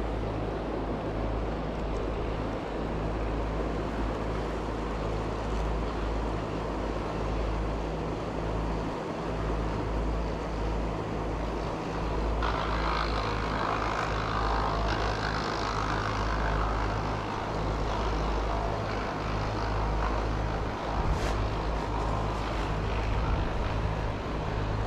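Mountain stream water rushing steadily over rocks, a little brighter and hissier from about halfway through.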